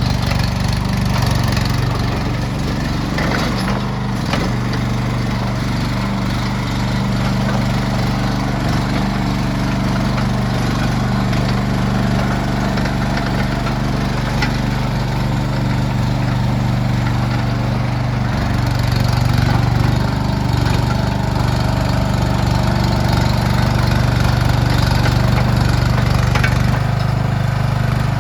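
Mini skid steer's small engine running steadily, with small changes in engine speed along the way.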